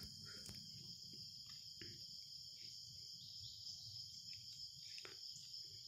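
Faint, steady high-pitched insect chorus, with a few soft clicks scattered through.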